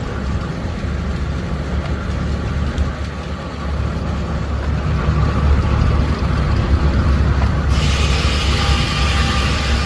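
A steam-engine-driven sawmill running with a steady low rumble. Nearly eight seconds in, a loud hiss starts suddenly and holds.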